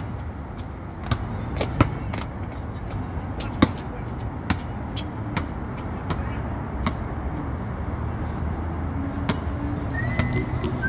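Basketball bouncing on a concrete outdoor court, with sharp slaps at irregular spacing about two a second, over a steady background noise. A whistled melody comes in near the end.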